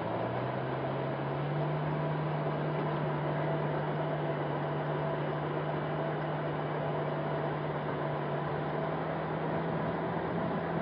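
Distant off-road rig's engine droning steadily as it climbs a steep dirt hill, its pitch rising a little in the first second or so and then holding. A steady hiss lies beneath.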